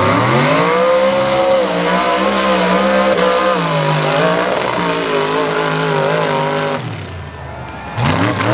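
Mud truck's engine revving hard at full throttle as it launches and runs across the dirt course. The pitch climbs over the first second, holds high with small dips, then drops away about seven seconds in.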